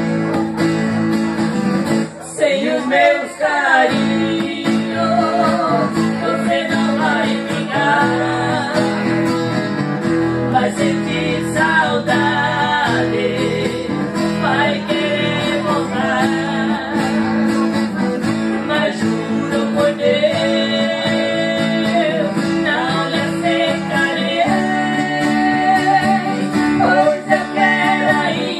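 Two acoustic guitars strummed together with a voice singing a melody over them, as a live song.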